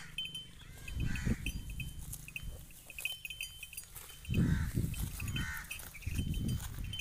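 Nili-Ravi water buffalo grazing close by, tearing and chewing grass in three short bouts, with a high, on-and-off chirping in the background.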